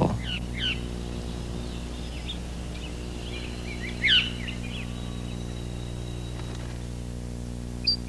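A thrush singing scattered short phrases of quick falling notes, the loudest about four seconds in, over a steady low hum.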